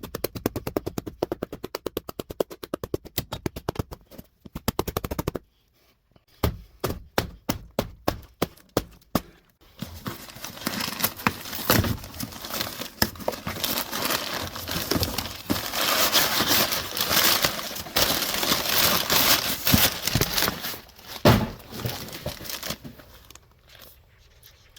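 A taped cardboard box being worked open by hand. A quick, even run of sharp clicks is followed by slower clicks, then a long stretch of scraping, tearing and crinkling of tape and packaging with sharp snaps in it, which dies away near the end.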